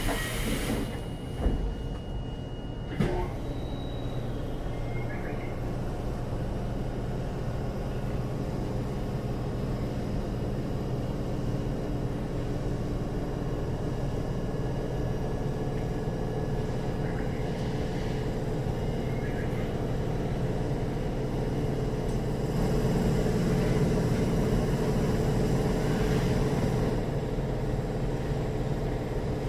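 Keikyu 1500-series train car standing at a platform with its doors open, its onboard equipment giving a steady low hum with a faint tone. A high steady tone and a few knocks sound in the first three seconds, and the hum swells for a few seconds past the twenty-second mark.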